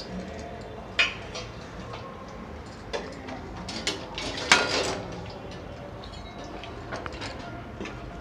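A metal spoon clinking against a metal kadhai of gram flour and ghee: a few sharp clinks, the loudest about halfway through, then the spoon scraping the pan as stirring begins near the end.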